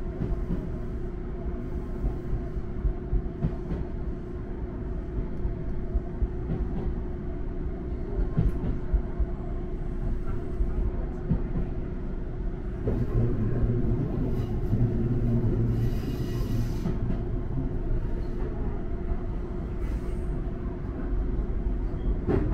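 Electric train running along the track, heard from inside the front cab: a steady rumble of wheels on rail with a held hum and occasional clicks. It gets louder a little past halfway.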